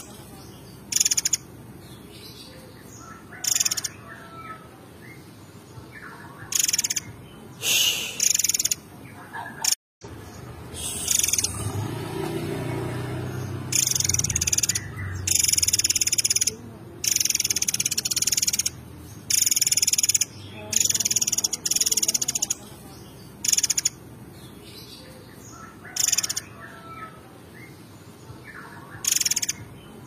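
Caged murai air songbird singing in loud, short repeated phrases, about a dozen bursts of high notes each lasting around a second, with pauses between them.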